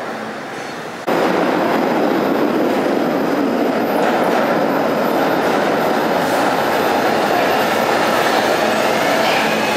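SEPTA Kawasaki light-rail trolley running into an underground station: a steady, loud rumble of steel wheels on the rails that starts suddenly about a second in.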